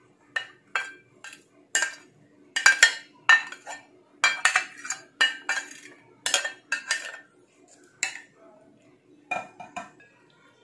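Spatula tapping and scraping against a glass bowl while shredded chicken is emptied out: a run of irregular sharp clinks and knocks, over a faint steady hum.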